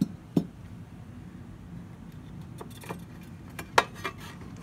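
Metal cover plate being worked loose and lifted out of an amplifier chassis: scattered sharp metallic clicks and knocks, the loudest nearly four seconds in.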